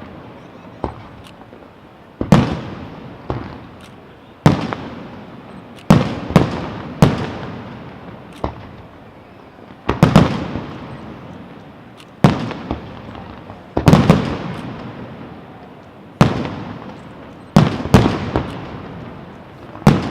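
Display fireworks bursting overhead: a loud bang every second or two, some in quick pairs, each trailing off in a long rolling echo.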